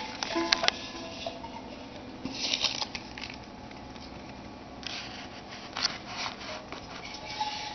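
Hamster's claws scratching and skittering on clear plastic, in short bursts with a few sharp clicks near the start.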